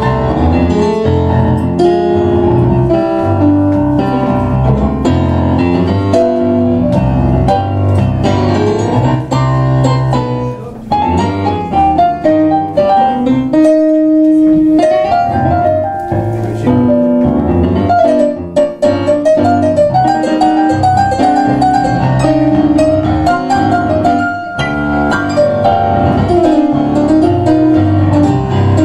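Two digital stage pianos, one a Kawai MP6, playing a tango as a duet: chords and a melody over a walking bass. About halfway through the bass drops away for a few seconds, leaving a single melody line, then the full texture comes back.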